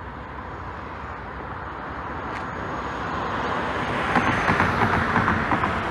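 A car passing on the road: a steady rush of tyre and engine noise that grows louder and peaks about four seconds in.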